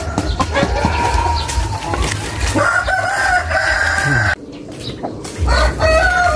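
Backyard chickens: a rooster crowing twice in long, drawn-out calls, the first about two and a half seconds in and the second starting near five and a half seconds, amid hens clucking. A low rumble on the microphone runs underneath, and the sound drops out briefly just after four seconds.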